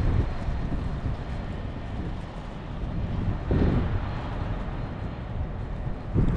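Blizzard wind buffeting the microphone: an uneven, gusting low rumble with a stronger gust about halfway through.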